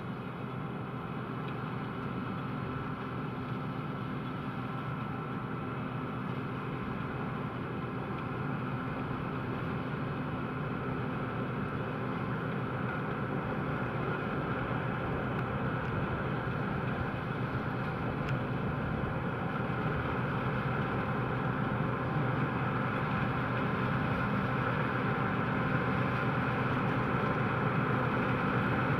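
John Deere 9560i combine harvester running steadily at work: a continuous machine drone carrying several steady tones, slowly growing louder.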